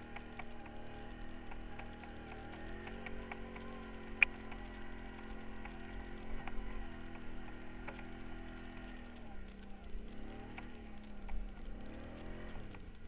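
Quad bike (ATV) engine running under load on a dirt trail, its pitch rising a couple of seconds in, holding steady, then dropping and swelling again twice near the end. Light knocks and rattles from the bumpy ride run through it, with one sharp click about four seconds in.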